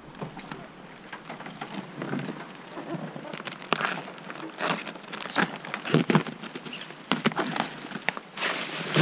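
Plastic wrapping and bubble wrap on a new kayak crinkling and rustling as it is handled, in uneven crackles.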